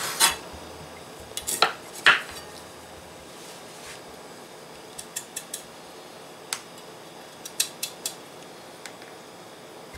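Kitchen knife knocking on a wooden cutting board and clicking against a piece of yuca (cassava) as its skin is peeled off. There are a few sharp knocks in the first two seconds, then scattered lighter clicks.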